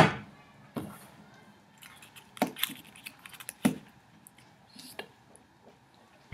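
A loud sharp knock on a hard tabletop, then a few lighter taps and clicks spread over several seconds as a small plastic self-righting toy is handled, tipped and rocks upright.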